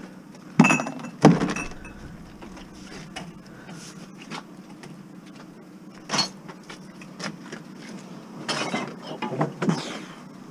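Knocks and scrapes of a small steel hot-water tank being manhandled into a van's side door. There are two loud thumps in the first second and a half, another around six seconds in, and a cluster of knocking and scraping near the end.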